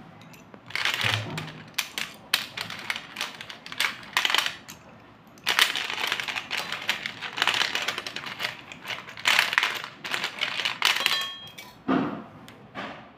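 Wet slate pencils clattering and clinking against each other and a steel plate as hands stir and sift through them, in repeated bursts of dense clicks. Near the end there is a brief metallic ring.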